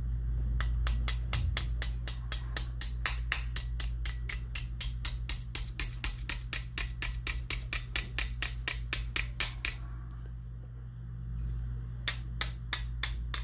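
Small hammer tapping a pin into a side-by-side shotgun's action: light, sharp, evenly spaced taps about four a second, stopping for about two seconds, then starting again near the end.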